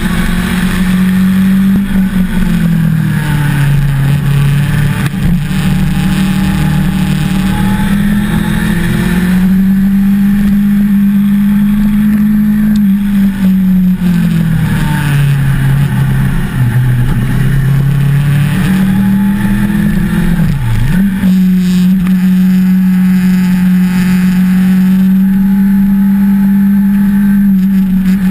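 1988 Suzuki GSX-R750J's oil-cooled inline-four engine pulling the bike uphill, heard from on board. Its pitch falls off and climbs back up twice, with one quick sharp dip and recovery about three-quarters of the way through.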